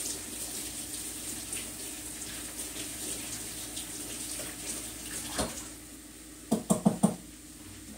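Kitchen sink tap running while cooking tongs are washed under it. The water shuts off about five and a half seconds in, followed by a quick run of about five sharp clicks from the tongs.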